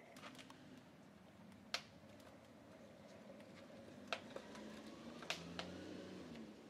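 Pieces of scrap wood knocking and clattering as they are pushed into a hot wood-fired train kiln's side stoke hole: a few sharp, separate knocks, with a faint low wavering hum underneath in the second half.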